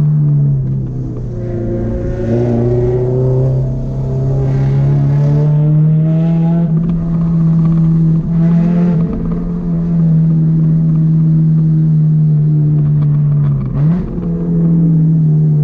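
Car engine running at high, steady revs. Its pitch drops about half a second in, climbs slowly back over the next few seconds, then dips sharply for a moment near the end before recovering.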